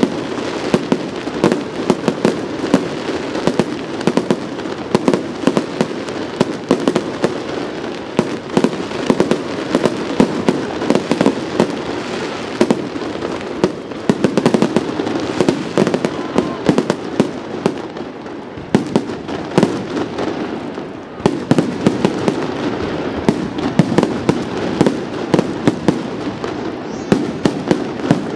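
Aerial fireworks display: shells bursting in quick succession over a steady crackle, with a brief lull about two-thirds of the way in.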